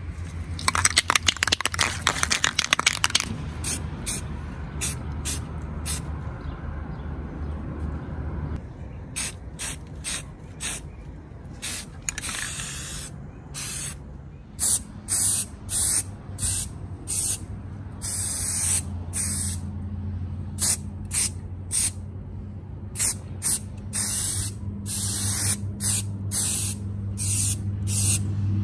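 Aerosol can of primer spray paint: a couple of seconds of fast rattling as the can is shaken, then many short hissing bursts of spray in quick succession, each under a second long.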